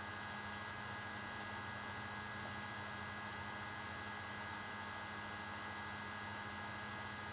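Steady electrical hum with a faint hiss: room tone.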